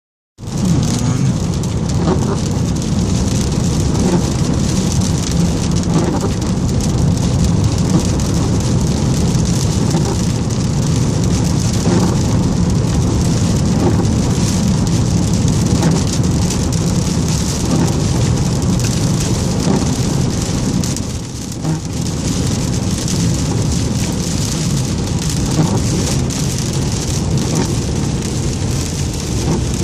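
Storm wind blowing hard and buffeting the microphone: a loud, steady rumbling rush that eases briefly once.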